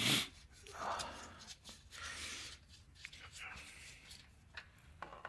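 Plastic cap of a Toyota 4Runner's cartridge oil filter housing being unscrewed by a gloved hand: soft scraping and rubbing of the threads and glove, with a few faint clicks. A short hissing burst at the very start.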